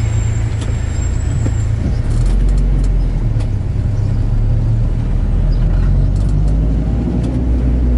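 Bus engine and road rumble heard from inside the moving bus, a steady low drone that grows heavier about two seconds in.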